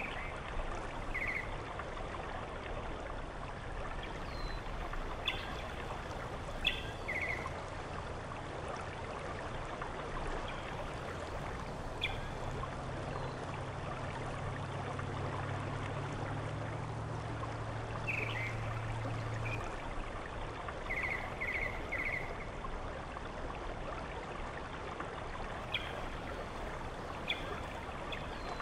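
Steady rushing of a running stream, with scattered short high bird chirps, including a quick run of three notes past the middle.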